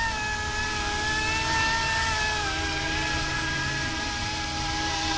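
Electric motors and rotors of a YUXIANG F09-S Coast Guard UH-60 scale RC helicopter whining steadily in flight, the pitch wavering and dipping slightly about halfway through. Under it is a low rumble of wind on the microphone.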